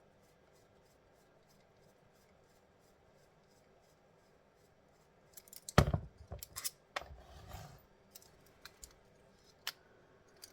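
Quiet at first. Then, about five and a half seconds in, comes a run of sharp clicks and knocks with some scraping, the loudest knock coming just after. These are the plastic and metal parts of a laser stage light being handled and worked apart with a hand tool.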